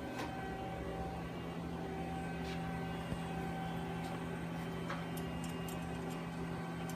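Steady machine hum with a few faint, light clicks, about three over the seven seconds.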